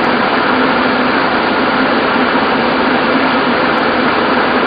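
Steady, loud whir of the space station cabin's ventilation fans and equipment: an even hiss with a low hum underneath that does not change.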